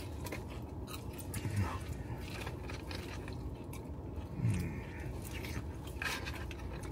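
Chewing and eating sounds close to the microphone, with small clicks and crackles of food being picked from a paper tray. Twice, about a second and a half in and again about four and a half seconds in, a voice gives a short low hum.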